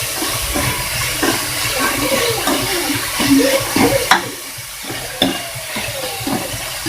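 Onions, tomatoes, green chillies and curry leaves frying in coconut oil in a pan, sizzling steadily while a spatula stirs them, scraping and knocking against the pan. There is a sharper knock about four seconds in and another about a second later.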